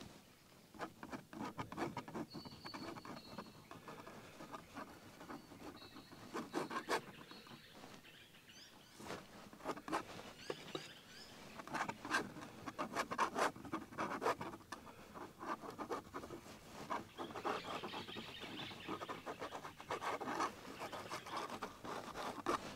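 A palette knife scraping and dabbing oil paint onto a stretched canvas: faint, irregular scratchy strokes that come more often and louder in the second half.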